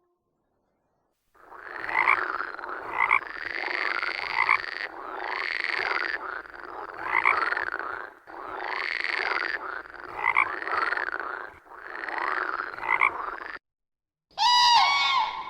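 Frogs croaking in a dense chorus that repeats in even cycles of about three and a half seconds, then stops suddenly. Near the end a different animal call with several stacked tones begins.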